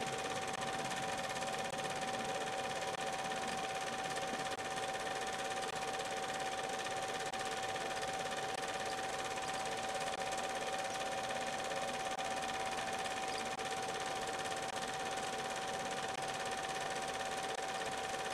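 Steady mechanical whirr of a running film projector, with a constant high-pitched tone over an even hiss.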